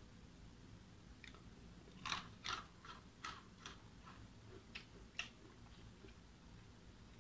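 Light plastic clicks and crackles from a small plastic spoon and crunchy biscuit balls in a plastic surprise-egg tray, a run of sharp clicks between about two and five seconds in.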